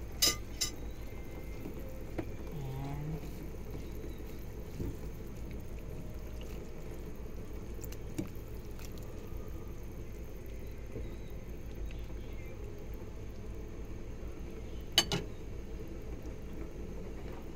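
A pot of chicken tinola broth with moringa leaves boiling, a steady low bubbling. There are a couple of sharp metal clinks right at the start and two more near the end, from the ladle against the pot.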